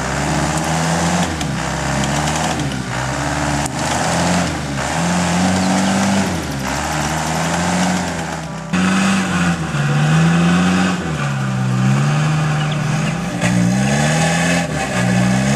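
Isuzu Trooper's engine revving up and down repeatedly under load off-road, its pitch rising and falling every second or two. The sound changes abruptly about nine seconds in.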